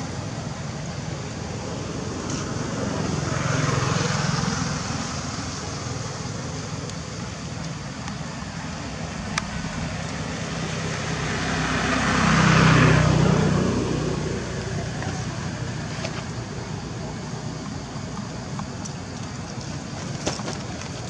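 Outdoor background noise with road vehicles passing: one about four seconds in and a louder one about twelve seconds in, each rising and then fading over a few seconds.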